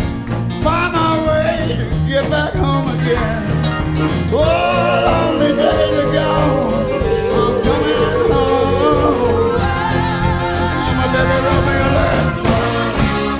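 Live rock-soul band with horns playing at full volume under a male lead vocal. The singer holds long notes with vibrato through the middle, and the band keeps a steady beat underneath.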